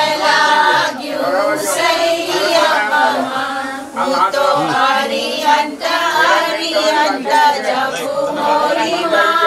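A group of voices singing together, with the singing going on steadily throughout.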